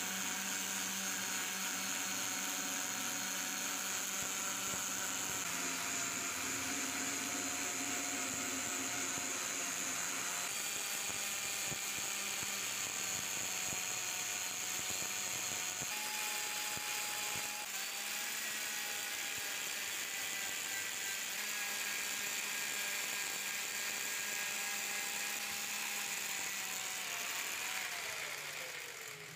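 Angle grinder with a polishing pad running at speed against a steel axe head, a steady whine that steps slightly in pitch as the pressure changes. Near the end it is switched off and winds down with a falling whine, the grinder having started to smoke.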